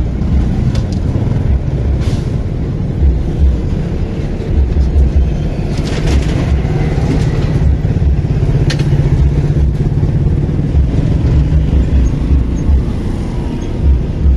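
A motor vehicle on the move: continuous engine and road rumble, broken by irregular low thumps. A steady low engine hum strengthens in the middle.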